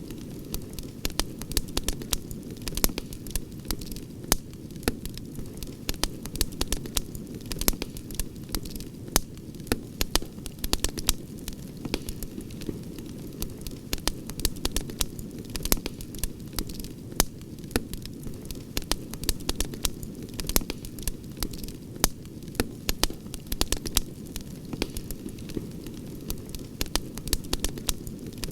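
Campfire crackling: many sharp, irregular pops and snaps, several a second, over a steady low rush.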